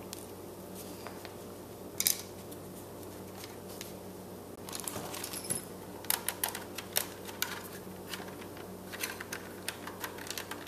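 Plastic housing of a BMW E36 climate control unit being handled: scattered small clicks and taps, with a sharper knock about two seconds in and a quick run of clicks in the second half as the unit is turned over in the hands, over a steady low hum.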